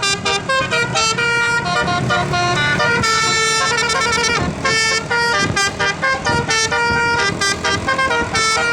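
A 12-note Basuri telolet horn playing a tune: a quick run of short, stepping horn notes with a few held longer.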